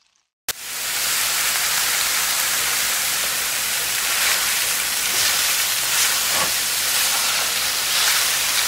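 Loud, steady sizzling hiss from a hot barbecue grill with faint crackles through it. It starts sharply about half a second in and cuts off suddenly.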